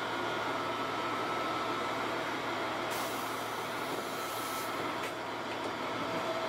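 Diesel railcar idling at a platform with a steady engine hum; about three seconds in, a hiss of compressed air lasting under two seconds as its pneumatic passenger door opens.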